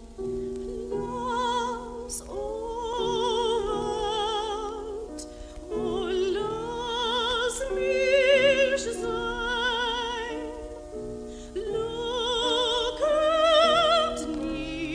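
Soprano singing a classical art song with a strong vibrato, accompanied by piano. The voice comes in about a second in over the piano, in long held phrases.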